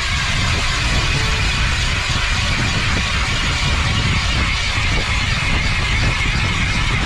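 Electric ice auger running steadily as its spiral bit bores down through lake ice, a constant motor whine over a low rumble.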